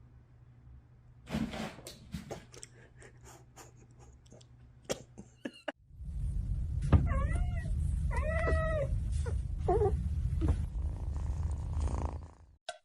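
A cat meowing in three or four drawn-out calls that rise and fall in pitch, over a steady low rumble. Before that, a scatter of sharp clicks and knocks.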